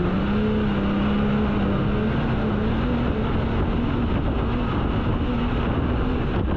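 Ford F-150 Raptor R's supercharged V8 running at a steady note under a continuous rush of wind and road noise as the truck drives.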